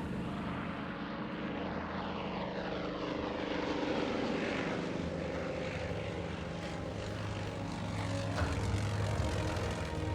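Propeller aircraft piston engines droning steadily, with several falling whines in the first few seconds as planes pass or dive.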